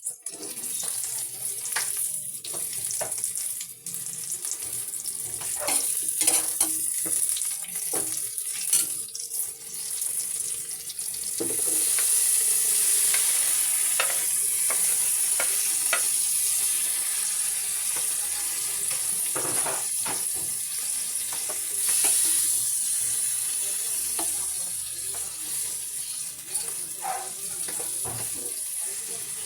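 Food sizzling in hot oil in a pan, with short knocks and scrapes of a utensil stirring against the pan. The sizzle grows louder about twelve seconds in.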